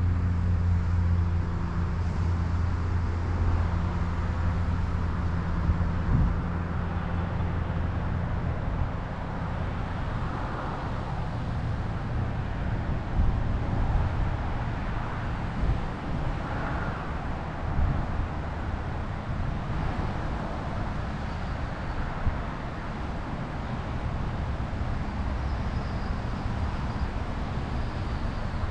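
Steady low rumble of a moving vehicle, with an engine hum that is clearest for the first several seconds and then fades into a more even road-like rumble.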